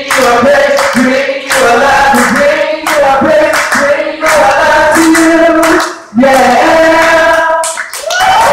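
Several voices singing the closing lines of a worship song together, with acoustic guitar, in long held notes with brief breaks. Applause starts right at the end as the song stops.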